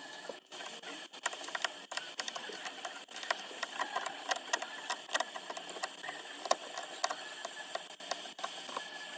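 Small tools clicking, tapping and scraping against a phone's glass back in quick, irregular strokes over a light hiss.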